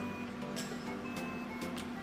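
Background music with a steady beat: sustained tones under a sharp percussive hit about every second.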